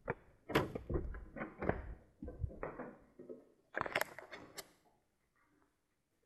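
Footsteps and the knocks and clunks of a wooden door being opened, with a louder cluster about four seconds in, then stopping about five seconds in.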